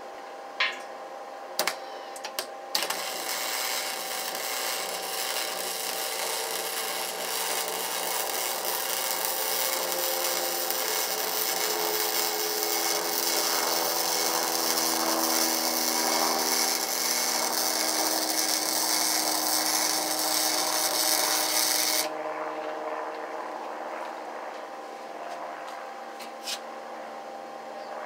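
Electric welding arc on steel, a dense crackling sizzle that strikes up about three seconds in and stops abruptly near the end, after a few sharp clicks at the start. A low steady hum runs underneath.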